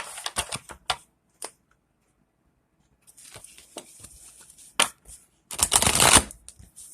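A tarot deck being shuffled by hand: quick flurries of card clicks, a pause of about a second and a half, then softer shuffling and a louder flurry near the end.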